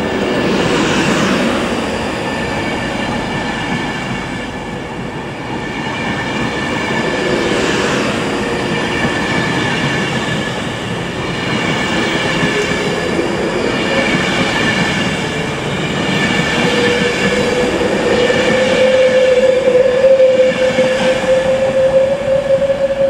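Class 390 Pendolino electric train pulling out, its carriages rolling past with steady running noise and a few high steady tones. Near the end an electric whine rises slowly in pitch and gets louder as the train gathers speed.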